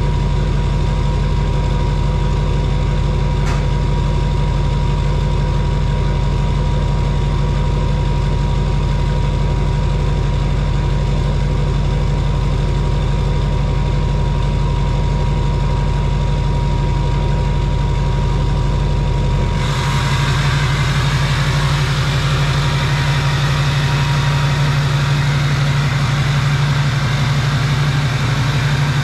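LBZ Duramax 6.6-litre V8 turbodiesel idling steadily through a straight-pipe exhaust, with an even low rumble. About two-thirds of the way through, the sound changes abruptly and becomes brighter and hissier.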